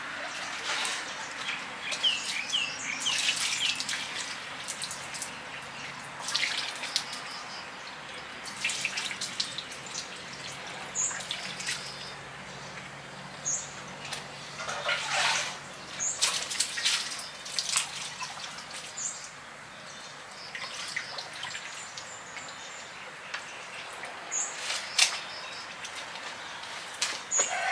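Small birds chirping now and then, with short high calls scattered throughout, over irregular knocks, scuffs and splashy clatter of someone handling things.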